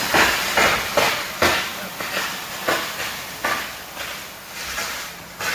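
High-pressure water from a fire hose or hydrant outlet spraying in repeated sudden hissing surges, about two a second at uneven spacing.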